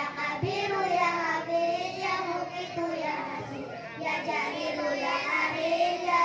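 Three young girls singing an Islamic devotional song together in unison into handheld microphones, one continuous melodic line with no breaks.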